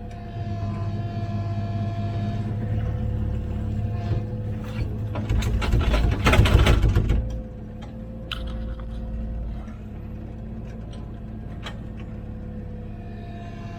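Komatsu PC16 mini excavator's diesel engine running steadily, working harder for the first few seconds, with a loud scraping rattle of digging about five to seven seconds in and a few sharp knocks.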